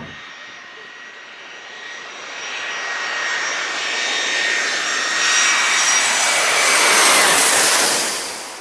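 Jet airliner passing low overhead, its engine whine and rushing noise growing steadily louder. The whine peaks about seven seconds in and drops in pitch as the plane goes over.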